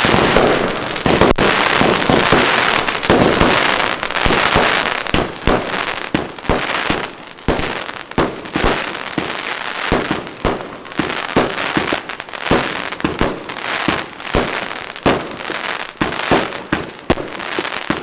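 Wolff Jackhammer compound firework firing: a dense hissing launch for the first few seconds, then a rapid, irregular string of shots and bursts as its shells break in the air.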